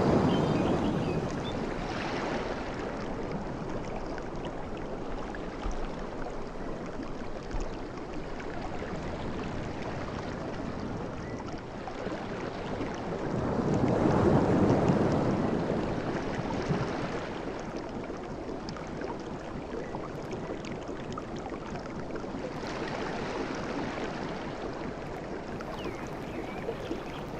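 Sea waves washing ashore: a large wave breaks right at the start and another about halfway through, with smaller washes between over a steady rush of surf.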